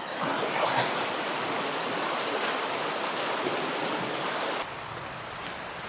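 Creek water rushing steadily. About four and a half seconds in it cuts abruptly to a quieter, duller background.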